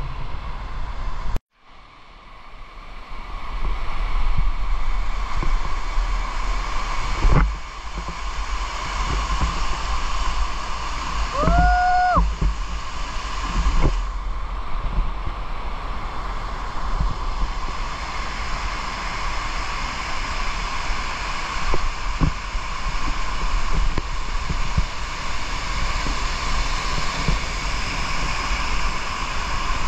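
River water rushing over small cascades, a steady rush with wind buffeting the microphone. The sound drops out briefly near the start, and a short rising pitched call is heard about twelve seconds in.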